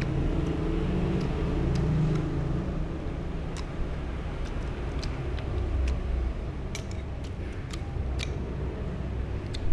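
Steady low rumble of road traffic, with a few sharp clinks of a spoon and fork against the plate in the second half.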